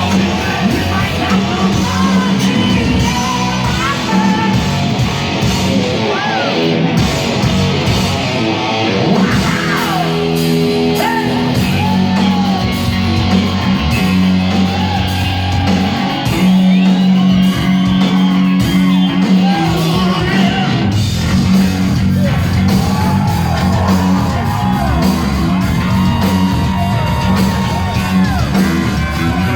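A hard rock band playing loud and live, with electric guitars, bass and drums, and a male singer shouting and wailing over it, echoing in a large hall.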